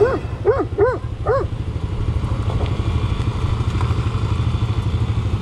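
A dog barks four times in quick succession, then a 125cc motorcycle engine runs steadily beneath the rider.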